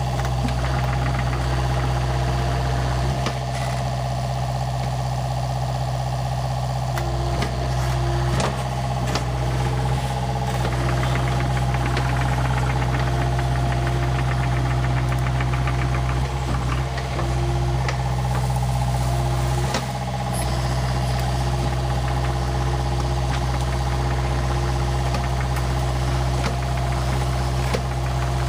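John Deere 50G compact excavator's diesel engine running steadily while it works, with a pitched whine that comes and goes as the arm and tracks move. A few sharp knocks stand out now and then.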